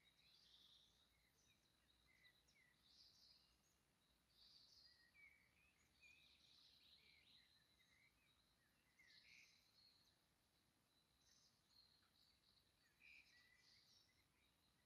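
Faint birdsong: several birds giving short chirps and warbling phrases over and over, over a low steady background hiss.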